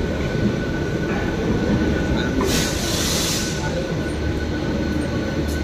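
Steady rumble of a passenger train running, heard from on board, with a thin steady high whine over it. About two and a half seconds in, a hiss rises for roughly a second and fades.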